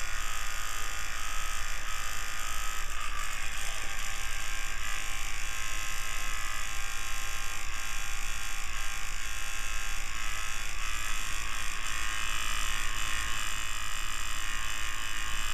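Electric fan running steadily, an even whir with a faint hum underneath.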